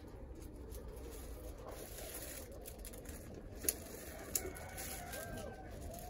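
Quiet room with a steady low hum and the faint rustle of a plastic-bagged garment being handled, with two short sharp clicks a little after the middle.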